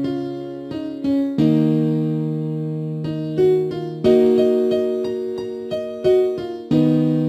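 FL Studio's FL Keys piano plugin playing a looped pattern. Sustained piano chords change every couple of seconds, with short repeated higher melody notes struck over them.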